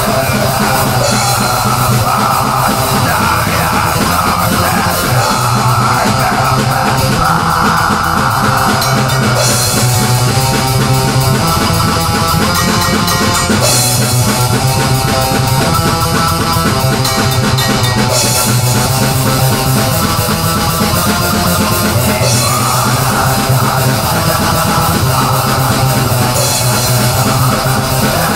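Heavy rock music played on electric guitars and a drum kit, with a low riff that shifts every few seconds under steady cymbals.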